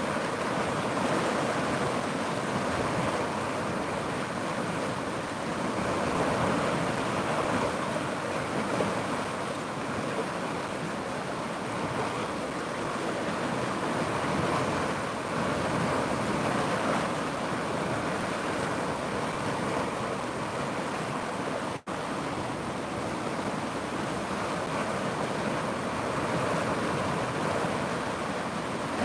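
River water rushing steadily, an even continuous wash of flowing water, cut out for an instant about two-thirds of the way through.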